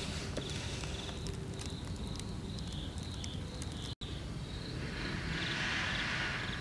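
Insects chirping, a short high chirp repeated at an even pace over a steady low background rumble. The sound cuts out for an instant about four seconds in, and a hiss swells up near the end.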